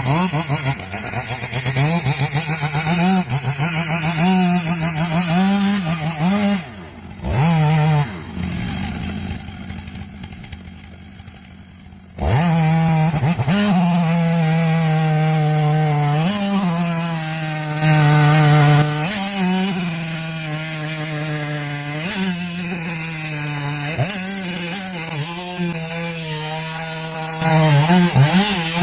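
Two-stroke chainsaw cutting a large tree, the engine at high revs and dipping again and again as the chain bites. About a third of the way through it eases off for a few seconds, then is suddenly back at full throttle.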